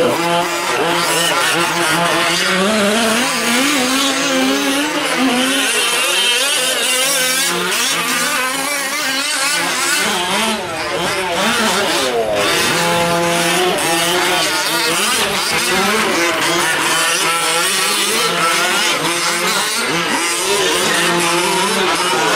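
Several 1/5-scale gas RC trucks' small two-stroke engines racing together, each revving up and falling off in pitch as they accelerate and back off, their whines overlapping.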